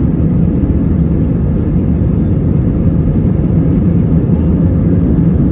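Airliner cabin noise heard inside the cabin: a steady low rumble of the jet engines and the plane rolling on the ground.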